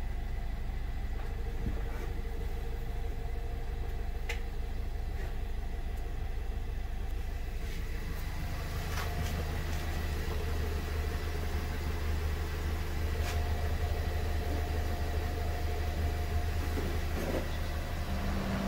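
Audi S3 8V's 2.0 TFSI four-cylinder engine idling steadily while the DSG gearbox oil warms up toward its level-check temperature, with a few light clicks. The low rumble grows a little stronger about eight seconds in.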